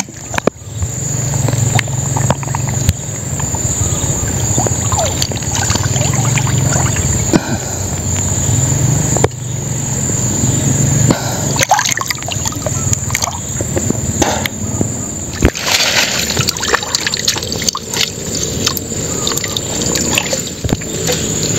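Water splashing and sloshing as hands work inside a submerged net fish trap, with water trickling and dripping.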